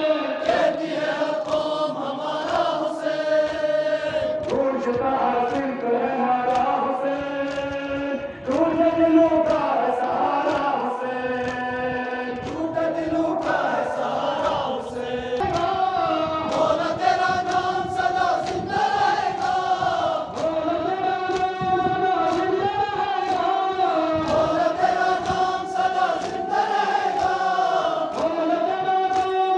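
Many men's voices chanting a Shia mourning lament (nauha) together in long, held, wavering tones. Sharp beats keep time under the chant throughout.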